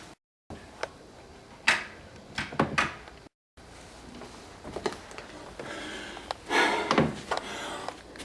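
Scattered knocks and clatter of a door being handled and opened, with a louder scraping rush about two thirds of the way through. The sound drops out twice in the first half.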